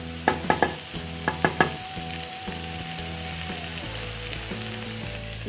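Chopped capsicum in an onion-tomato masala sizzling in hot oil in a pan, being stirred in, with a few sharp clicks of the spoon against the pan in the first couple of seconds, then a steady sizzle.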